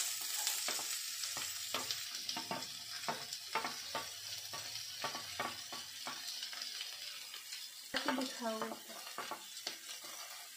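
Chopped potatoes, onions and green chillies sizzling as they hit hot oil in a non-stick kadhai. A wooden spatula scrapes and taps repeatedly as it pushes them off a steel plate and stirs them.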